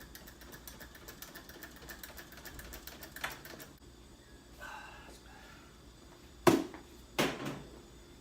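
Fast, even clicking of a ratchet wrench being worked on the intake's fasteners, lasting a few seconds. Then, about two-thirds of the way in, two loud sharp knocks of parts or a tool striking, less than a second apart.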